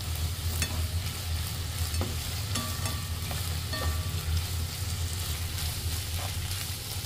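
Sliced burdock root, konnyaku, bamboo shoots and chicken sizzling in sesame oil in a nonstick frying pan while a spatula stirs them. The spatula's scrapes and taps on the pan come mostly in the first four seconds, over a low steady hum.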